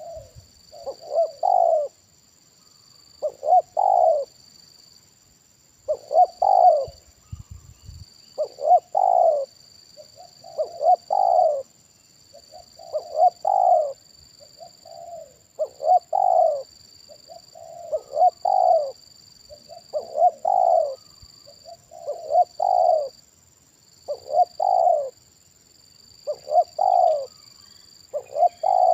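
Spotted dove cooing, its call phrase repeated about every two and a half seconds: a couple of short notes running into a longer, louder coo. A faint steady high tone sits behind it.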